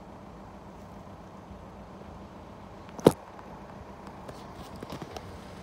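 A single sharp knock about three seconds in, then a few light clicks, from the filming phone being handled and set against a wooden rail, over a steady low rumble.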